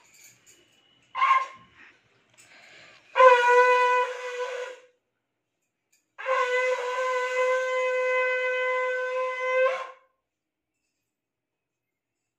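A conch shell (shankh) blown as a horn: a short puff about a second in, then two steady blasts on one held note, the second about twice as long as the first.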